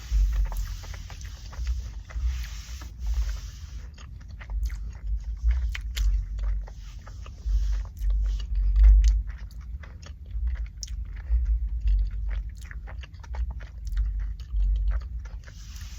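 Close-miked chewing and biting of a bacon and egg McMuffin: many small irregular mouth clicks and smacks, with a few breathy stretches and a low rumble underneath.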